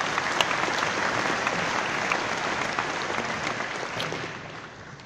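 Large audience applauding, the clapping fading away near the end.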